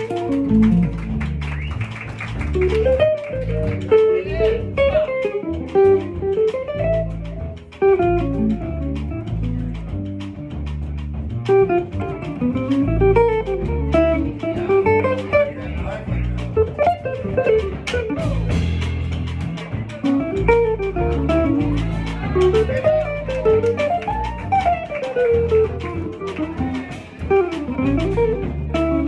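Archtop guitar played in a jazz-blues style, with runs of single notes rising and falling. Underneath it a bass line moves note by note.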